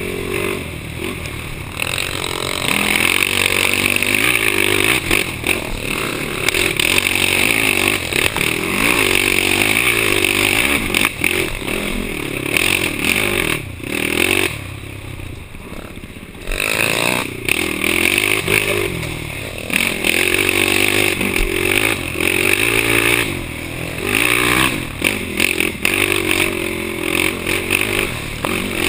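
Yamaha YFZ450 ATV's single-cylinder four-stroke engine under race throttle, revving up and down through the gears over rough ground with rattling and scraping. About halfway through the throttle closes and the engine goes quieter for a couple of seconds before pulling hard again.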